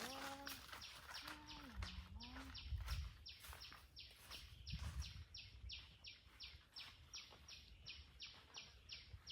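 Steady rhythmic chirping, about four short pulses a second. In the first two seconds a pitched call slides down and back up twice, and there is some low rumbling around the middle.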